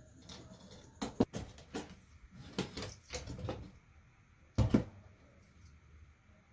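A series of sharp clicks and light knocks, several close together in the first three and a half seconds and the loudest a double knock near the five-second mark, then only faint background.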